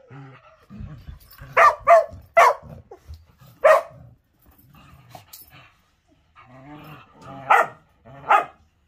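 Dogs play-barking and growling while wrestling: sharp barks come in two bunches, four in the first half and two near the end, with low growls between.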